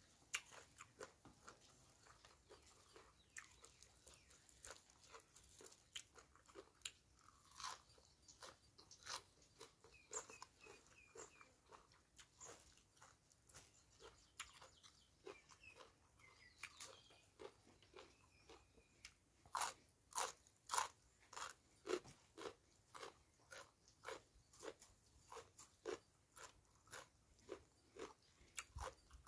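A person chewing and crunching raw vegetables and green papaya salad close to the microphone: a steady run of crisp crunches, quicker and louder about two-thirds of the way through.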